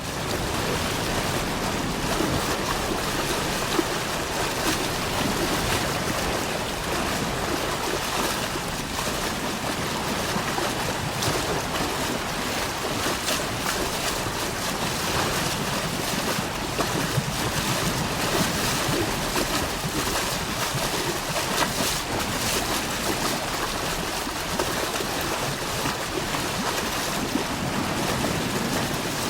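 Steady roar of rushing, churning water, dense and unbroken, with scattered crackles and splashes through it.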